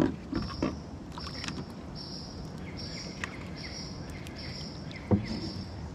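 Crab pot being hauled up on its rope beside a kayak, with a knock against the kayak at the start and again about five seconds in. Behind it, a high pulsing chirp repeats steadily, a little over once a second.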